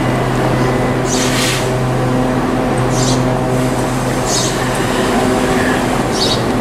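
Steady electric hum of two stationary Class 395 Javelin units standing coupled nose to nose, with four short hisses spread through it about every second and a half.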